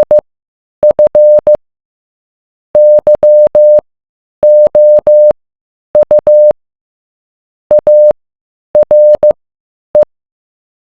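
Morse code: a single steady tone keyed on and off in short and long beeps, grouped into letters with silent gaps between.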